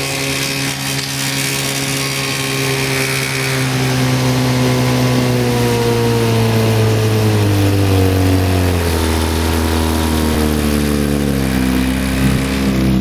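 Evinrude outboard motor running, its pitch steady at first and then falling gradually over several seconds as the engine slows.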